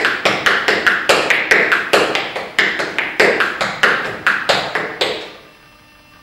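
Tap shoes striking a hard floor in the continuous rhythm of the basic busking time step (tap, set, shuffle, ball, ball, change), at about four taps a second, stopping about five seconds in.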